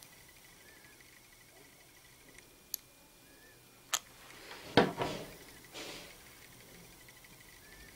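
Small scissors and hands handling fleecy fabric: a light click, then a sharper snip about four seconds in, followed by a short rustle just before five seconds and a smaller one a second later. A faint steady high tone sits underneath.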